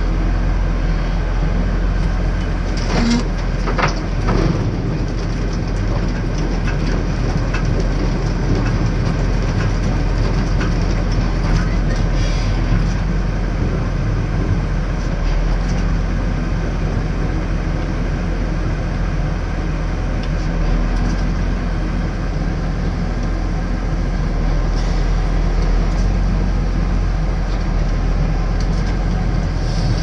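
Tractor engine running steadily under load, heard from inside the cab, together with the clatter of a trailed potato harvester at work. A few sharp knocks stand out about three to four seconds in and again near twelve seconds.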